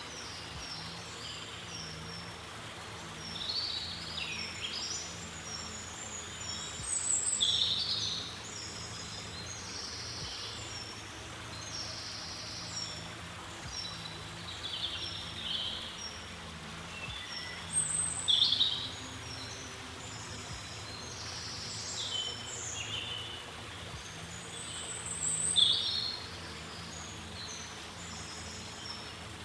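Small songbirds singing on and off, with three louder song phrases that each start high and drop, over a steady low background hum.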